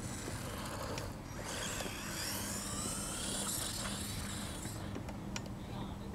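Brushless motor and drivetrain of a 1/16 Traxxas Mini E-Revo VXL RC truck whining high, the pitch rising and falling with the throttle, from about a second in until near the end. A few sharp ticks follow.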